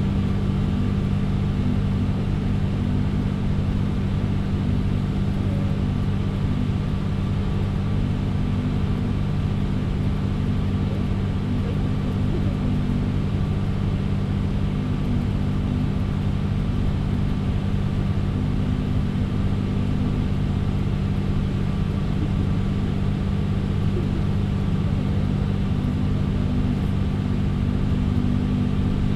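Volvo 8900LE city bus engine running at a steady, unchanging pitch with a low hum, heard from inside the passenger cabin.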